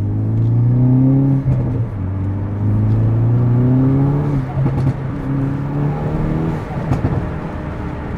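Hyundai Veloster N's turbocharged 2.0-litre four-cylinder, fitted with an AEM cold air intake, accelerating hard: the engine note climbs in pitch in three pulls, each broken by a brief drop, with a few sharp cracks around the third break and a steadier note near the end.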